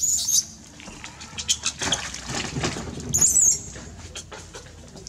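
Macaques giving short high-pitched squeaks, once at the start and again a little past three seconds, over scattered rustling and patter. A louder, rougher noise comes around two seconds in.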